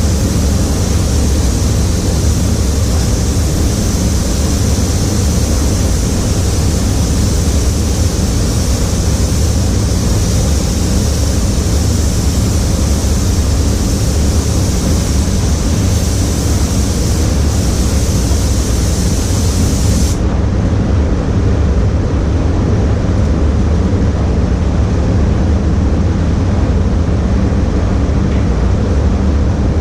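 Spray booth ventilation running with a steady low rumble, under the hiss of a paint spray gun that cuts off abruptly about two-thirds of the way through.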